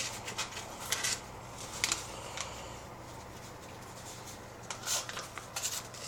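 A sheet of paper being handled as small engine bolts are pushed into holes poked in it: scattered rustles and crinkles with light scrapes and clicks.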